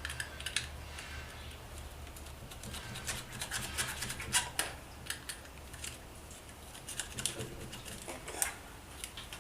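Scattered small clicks, scratches and rubbing as a stubborn, glued-on piece of the old handlebar grip is picked at and torn off by hand.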